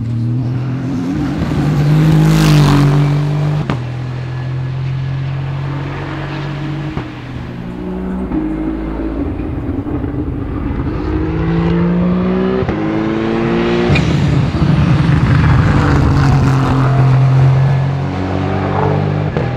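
Aston Martin Vantage GT3 Evo race car's twin-turbo 4.0-litre V8 driving past at full throttle. The engine note climbs in pitch and drops back at each upshift, loudest about two seconds in and again in the second half, with sharp cracks at a couple of the gear changes.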